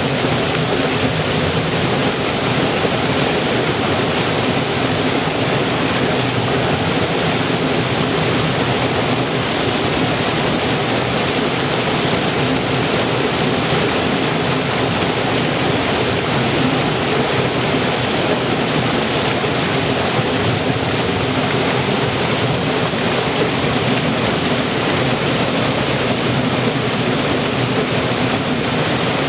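River water flowing and rushing, a steady full hiss of running water with no breaks or changes.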